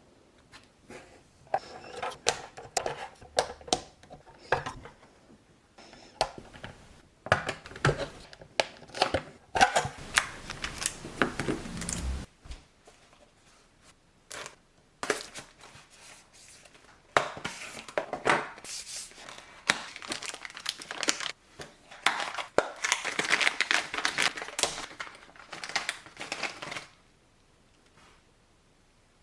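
Small parts being handled on a work surface: irregular clicks, taps and rustling in bursts, with a pause a little before halfway and a longer stretch of dense rustling later.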